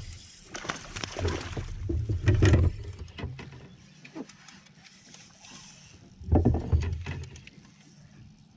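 Bumps and knocks on a fishing kayak's hull, with rustling and clicking of clothing and fishing gear, as an angler stands and shifts his weight while casting and reeling. The knocks come in two clusters, the first about a second in and the second about six and a half seconds in, with quieter handling sounds between.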